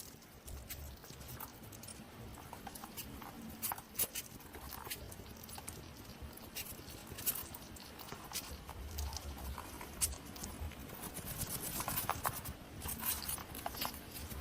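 Hedgehog moving about, making many irregular small clicks and ticks, with a low rumble at times.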